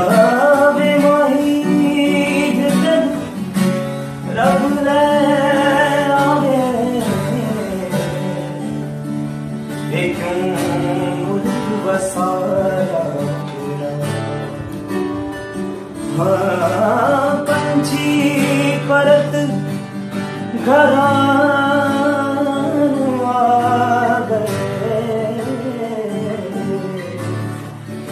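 A male voice sings a Punjabi folk song in long phrases with wavering, ornamented held notes, accompanied by a strummed steel-string acoustic guitar.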